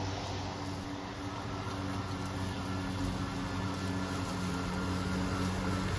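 Greenworks 80V cordless electric lawn mower running, its motor and spinning blade giving a steady hum.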